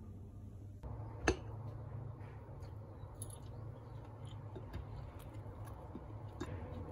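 Quiet café room sound: a steady low hum with one sharp clink a little over a second in, then scattered light clicks and clatters of cups, cutlery or small objects.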